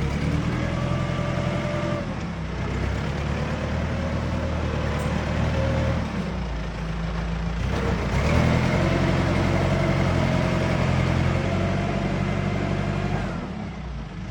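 Excavator engine running under load, its pitch shifting several times and revving up about eight seconds in.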